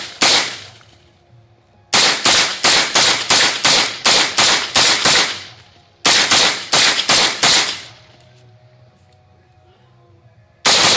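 Windham carbon-fiber AR-15 rifle fired semi-automatically in fast strings. There is one shot just after the start, then about a dozen shots at roughly three a second, a short pause, about six more, and another fast string near the end. Each shot echoes briefly.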